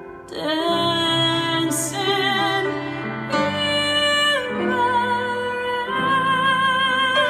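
Live pop ballad: a woman's voice holding a string of long notes with a wide vibrato, one sliding down a little about four seconds in, over instrumental chords.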